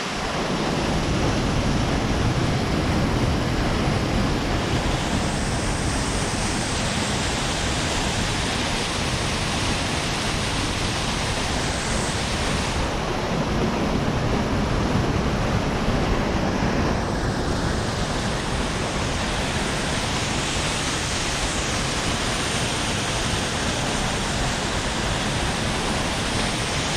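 Small creek waterfalls in high flow after heavy rain: a steady, loud rush of fast-running water.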